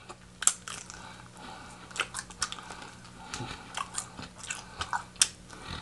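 Close-miked chewing and biting into crispy fried chicken wings: irregular sharp crunches and crackles of the fried coating, a dozen or so spread unevenly over a few seconds.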